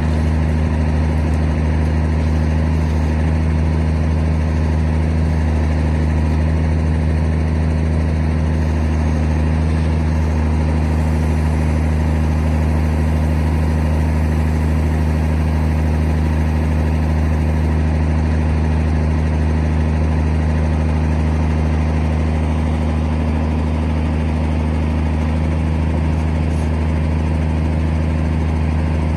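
Engine running steadily at a constant speed, driving the hydraulics of a HIAB 112 timber loader crane as its grapple lifts a bundle of logs.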